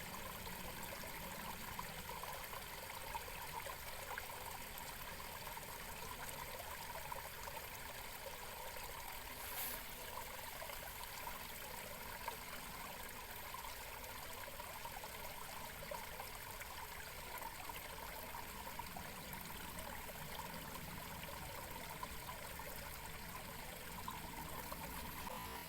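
Steady trickling, flowing water, an even wash of noise with no break.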